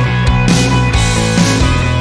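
Background music with a steady beat and sustained chords.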